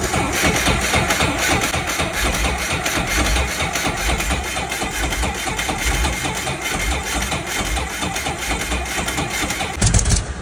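Brantly B2 helicopter's four-cylinder Lycoming piston engine running at idle with a rapid, even beat, back to life after years standing once its fuel lines were cleaned and filters replaced. A louder burst comes just before the sound cuts off near the end.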